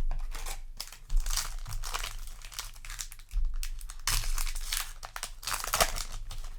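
Foil Yu-Gi-Oh! booster pack wrapper crinkling and tearing in the hands, in a run of rustles as the pack is opened.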